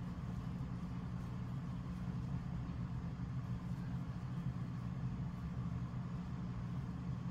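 Steady low machine hum with a faint hiss, unchanging throughout.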